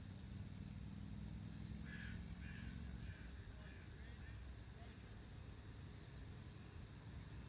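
Quiet outdoor background: a low steady rumble with a few faint, short bird calls, most of them about two seconds in.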